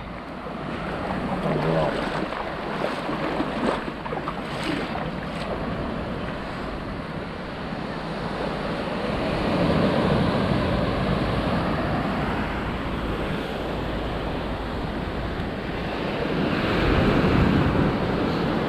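Sea waves breaking and washing up on a beach, the surf swelling twice, about halfway through and again near the end.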